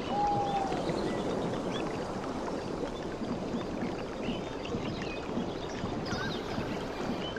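Steady wash of sea water lapping and rushing, with scattered short bird chirps over it and one clear whistled bird note near the start.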